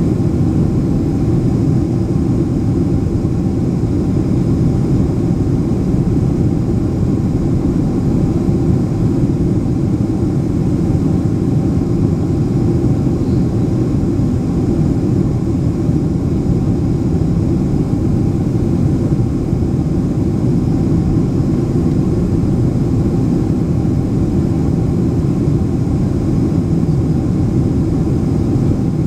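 Steady low rumble of a Boeing 767-300ER airliner heard from inside the cabin, engine and air noise, with faint steady tones above it.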